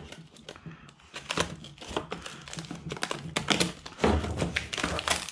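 Hands rummaging through a cardboard box of differential rebuild kit parts: plastic bags crinkling, cardboard rustling and small metal parts clicking against each other in irregular bursts, with a dull thump about four seconds in.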